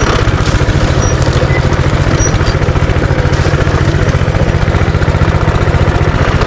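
Minibike's small engine running steadily at a low, even speed, a fast regular putt-putt of exhaust pulses.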